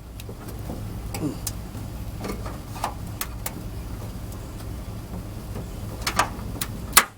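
Scattered sharp clicks and metal taps from a hand tool working a tight bolt on the SUV's body, irregularly spaced, with the loudest click near the end, over a steady low hum.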